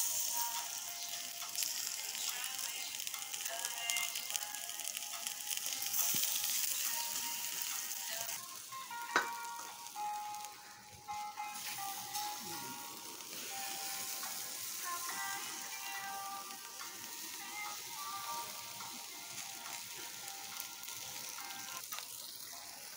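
Marinated chicken pieces sizzling on a wire grill over hot charcoal: a steady hiss. A melody of music plays over it, and there is one sharp click about nine seconds in.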